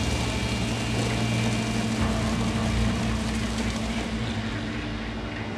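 Steady low drone of a fishing trawler's machinery, with a broad hissing noise over it.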